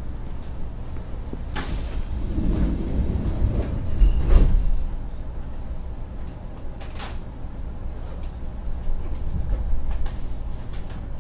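Sliding doors of a Kintetsu 2050 series electric train closing: a sharp rush of air about a second and a half in, then a heavy thud as they shut about four seconds in, followed by a sharp click a few seconds later. The standing train's low rumble runs underneath.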